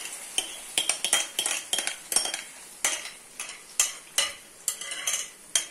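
A utensil scraping and knocking against a glass bowl, irregular clinks about two or three a second, as thick frittata mixture is scraped out into a hot frying pan. A light sizzle of the hot oil runs underneath.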